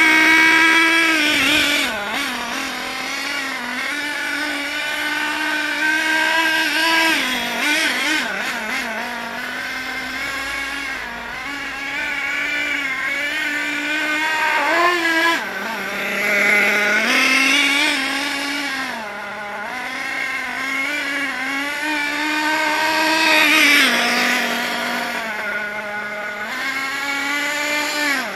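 Hot Bodies Lightning GT radio-controlled nitro car's small glow engine running, its high buzzing pitch rising and falling repeatedly as the car speeds up and slows down.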